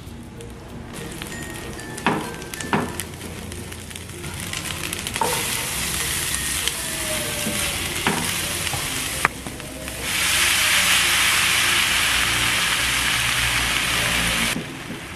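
Salted dried fish frying in hot oil in a frying pan, sizzling, with a few sharp taps of a spatula on the pan as it is stirred. About ten seconds in the sizzle turns much louder as water spinach goes into the hot oil, then drops suddenly near the end.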